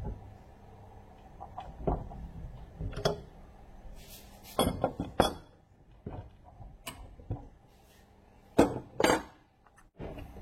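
Metal steering-rack parts and hand tools clinking and knocking as they are handled and fitted: a scatter of separate sharp metallic clinks, the loudest two close together near the end.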